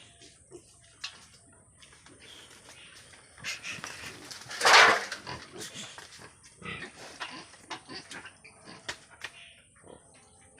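Farm pigs grunting, with scattered short knocks and one loud squeal about halfway through.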